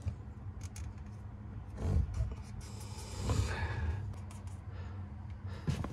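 Plastic drain pipe, fittings and a corrugated flexible drain hose being handled, giving a few light clicks and knocks and a stretch of rubbing, over a steady low hum.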